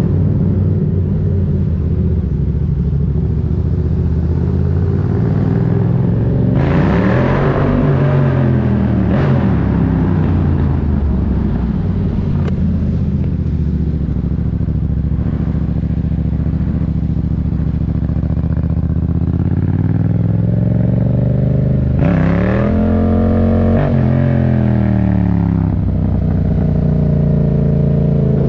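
Yamaha MT-07's 689 cc parallel-twin engine running through a Black Widow aftermarket exhaust with its dB-killer baffle fitted, heard from the rider's seat while riding at low speed. It runs steadily with two rounds of throttle, one about a quarter of the way in and one about three quarters in, each rising and then falling in pitch.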